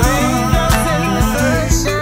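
Music: a song with a bass line and a steady drum beat under a melodic line.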